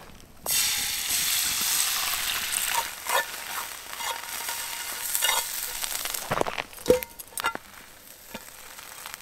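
Eggs dropped into hot bacon fat in a frying pan over a campfire, starting a loud sizzle about half a second in. The sizzle eases over the following seconds while a utensil scrapes and taps the pan as the eggs are stirred.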